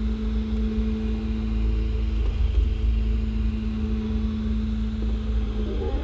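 Original Prusa i3 MK3S 3D printer printing: its X and Y axis stepper motors give a steady humming tone as the print head moves, with a low rumble underneath. The tone shifts slightly about two seconds in.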